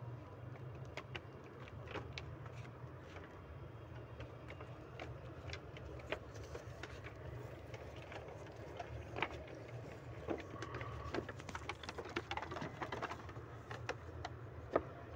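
Mixed feed being put out in a goat pen: scattered light clicks and knocks that grow busier after about six seconds, over a steady low hum.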